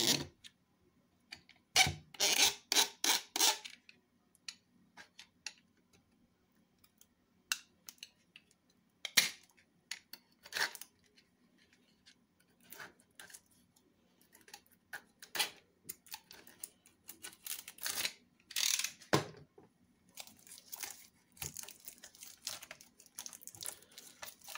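Shrink-wrap on a plastic CD jewel case being slit with a utility knife, then peeled and pulled off: a quick run of sharp scraping strokes about two seconds in, then scattered clicks and crinkles of the film and case, with denser crinkling near the end.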